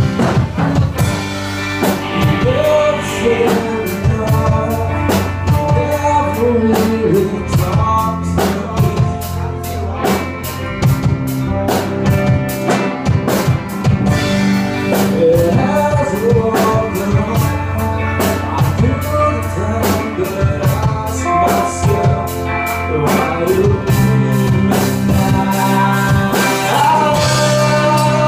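Live rock band playing a song: electric guitars, bass and a drum kit keeping a steady beat, with a singer carrying the melody.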